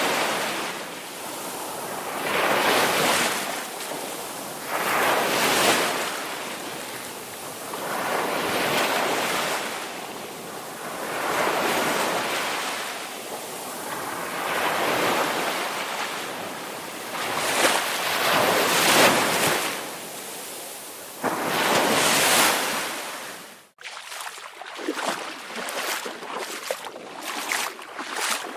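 Ocean waves breaking and washing up a beach, each surge swelling and fading every two to three seconds. About four seconds before the end the sound cuts off abruptly and gives way to choppier water with quick short splashes.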